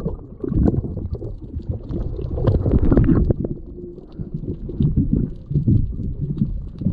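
Muffled underwater water movement heard through a camera held beneath the surface, an uneven low sloshing rumble with small scattered clicks and crackles.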